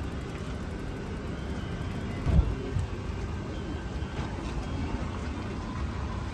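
Steady low outdoor background rumble, with one short low thump about two and a half seconds in.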